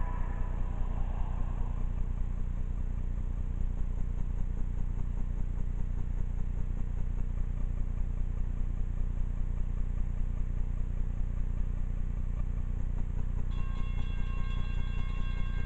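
Steady low rumble of diesel freight locomotives off in the distance. About two seconds before the end a locomotive horn starts sounding, a chord of several held tones.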